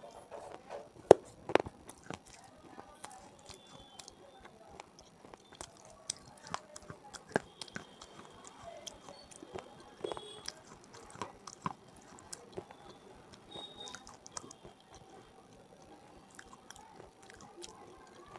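Close-miked biting and chewing of hard, brittle pieces. Two loud sharp crunches come about a second in, then lighter crackling chews that thin out toward the end.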